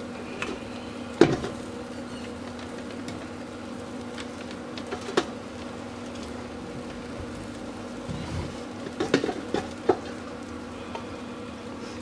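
A steady low hum runs throughout. Over it come a few sharp metal clicks of barbecue tongs against the grate of a small charcoal kettle grill: once about a second in, again about five seconds in, and a quick cluster around nine to ten seconds in as meat pieces are turned.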